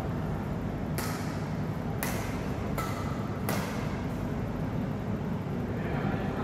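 Badminton rackets hitting a shuttlecock in a rally: four sharp pops in quick succession over about two and a half seconds, over a steady background hum.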